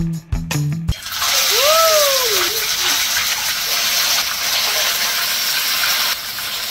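Snakehead (dalag) fish steaks sizzling loudly in hot oil in a frying pan, starting about a second in after a short bit of mallet-percussion music. The sizzle drops a little in level about six seconds in.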